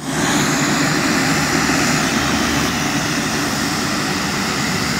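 Engines of a twin-engine turboprop airliner running, a loud steady sound that holds even throughout.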